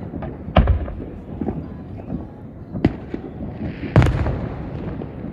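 Fireworks going off: a string of loud bangs and smaller pops, the loudest bang about four seconds in.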